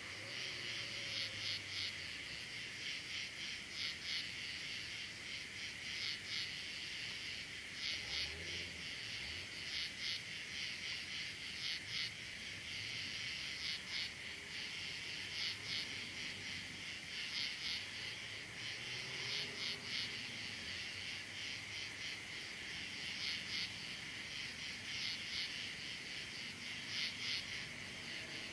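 Crickets chirping: a steady high trill that swells into louder pulses about every two seconds.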